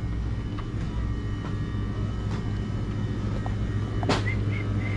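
Store background: a steady low hum with faint scattered clicks. About four seconds in comes one sharp click, followed by a few short high squeaks.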